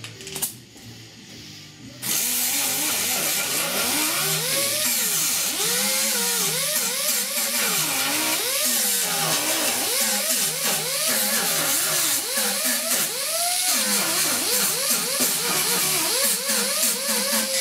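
Electric grinder switched on about two seconds in and worked against the truck's sheet-metal roof, grinding the paint off around drilled-out spot welds. Its pitch dips and recovers again and again as the disc bites and eases off.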